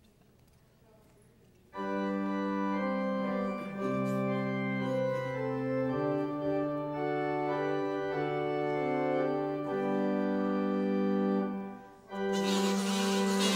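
Organ playing held chords that shift slowly from one to the next, starting a couple of seconds in after a near-quiet pause. The chords break off briefly near the end, then a fuller, brighter chord comes in.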